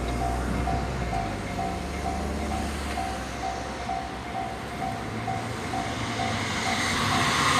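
Japanese level crossing warning bell ringing steadily, a little over two strikes a second, over the rumble of a train that grows louder near the end.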